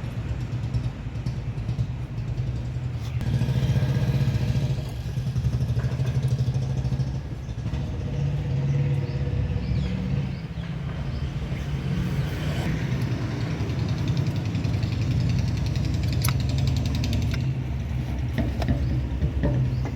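A motor vehicle engine running steadily with a low, pulsing rumble, with a couple of sharp metallic clinks near the end.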